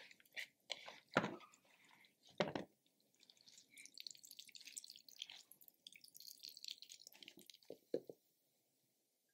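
Grated zucchini, salted to draw out its water, squeezed by hand over a wooden bowl: liquid drips and trickles out, with two soft thuds in the first few seconds as squeezed handfuls drop into the bowl. A few light taps near the end.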